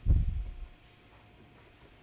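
A single dull, low knock at the start, dying away within about half a second, from the metal nut driver and dart-gun barrel being handled on the cloth-covered workbench; then only faint background.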